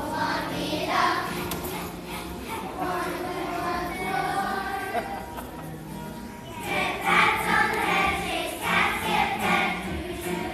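A class of second-grade children singing together as a choir, getting louder about two-thirds of the way through.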